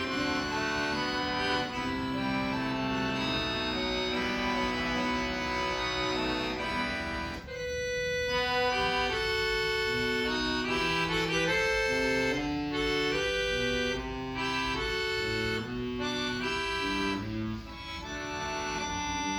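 Solo accordion playing a piece. Dense, fast chordwork comes first. After a brief break about seven seconds in, a melody of held notes moves over low bass notes.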